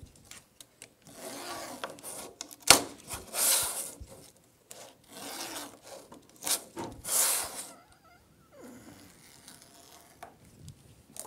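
Utility knife trimming excess screen mesh and spline along the edge of a window screen frame: several short scraping cutting strokes, with a sharp click a little under three seconds in. It goes quieter for the last few seconds.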